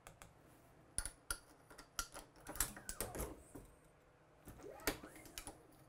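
Scattered light clicks and taps of hands working a Hornady Lock-N-Load AP press's powder measure as its charge is dialled down, with a denser cluster near the middle.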